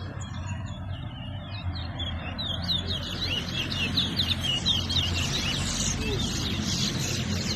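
Towa-towa (large-billed seed finch) singing a fast run of sharp high chirps and slurred whistles that grows denser about three seconds in, the song counted in a singing race. A low steady rumble lies underneath.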